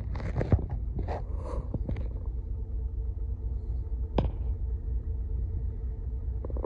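Steady low rumble of a ship's enclosed lifeboat's diesel engine as the boat motors away under power, with short hissy bursts in the first two seconds and a single sharp knock about four seconds in.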